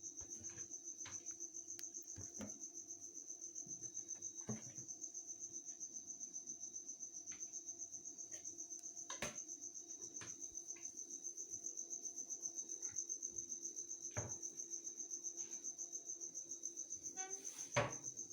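A cricket chirping steadily, about four chirps a second, over a faint steady hum, with a few scattered light clicks and knocks, the loudest near the end.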